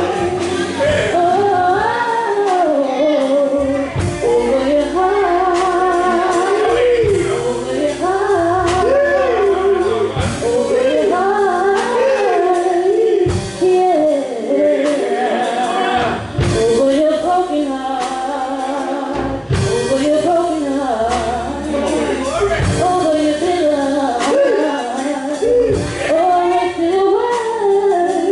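Gospel worship song with a singing voice and a live band playing.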